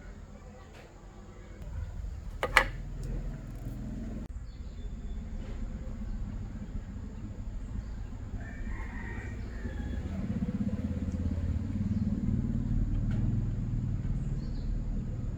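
A rooster crowing over a low rumble, with a single sharp click about two and a half seconds in.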